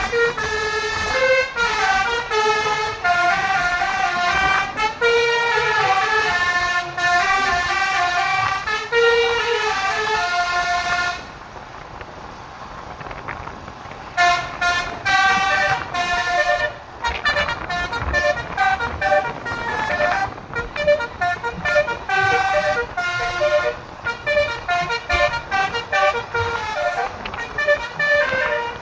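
Basuri musical bus horn, an electric multi-trumpet horn, playing a melody in stepped notes. It stops for about three seconds around the middle, then plays on in short, choppy notes.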